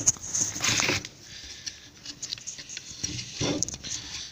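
Small clicks and scrapes from hand work on a metal ECU casing, with a short hiss about half a second in and another brief rustle near three and a half seconds.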